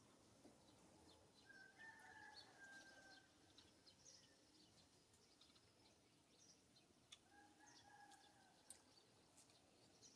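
Faint rooster crowing twice, each crow held about a second, over small birds chirping, with a couple of light clicks.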